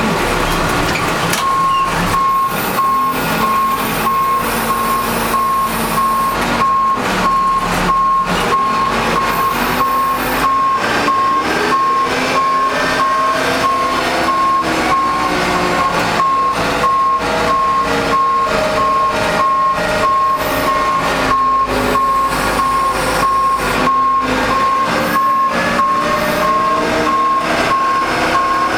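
Backhoe's backup alarm beeping steadily at one pitch as the machine reverses, starting a second or two in, over its diesel engine rising and falling in pitch under load.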